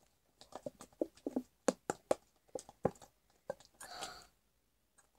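Plastic squeeze bottle of white glue being squeezed upside down, the glue squelching out into a bowl: a run of irregular small clicks and crackles, then a brief soft hiss near the end.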